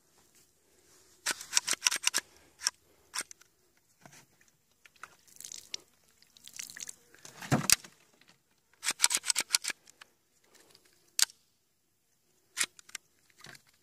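The slide of a sand- and mud-fouled Beretta 92FS pistol racked by hand: bursts of quick gritty clicks and scrapes, several single clicks, and a heavier thump about halfway through. Grit in the action keeps the slide from closing easily into battery, and water is poured over it between racks.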